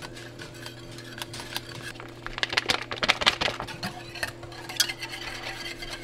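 Wire whisk stirring, scraping and clinking against a stainless steel saucepan as gravy mix is whisked into water; a quick run of rapid clinks about two seconds in is the loudest part.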